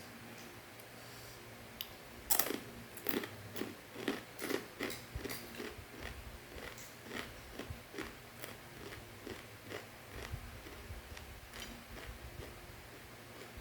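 Crunchy macaroni snack being bitten and chewed close to the microphone: a run of crisp crunches starting about two seconds in, loudest at first, then settling into steady chewing at about two crunches a second.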